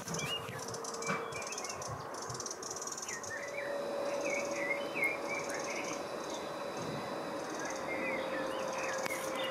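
Small songbirds chirping in short, repeated twitters over a steady outdoor background hiss. A faint steady drone comes in about three seconds in.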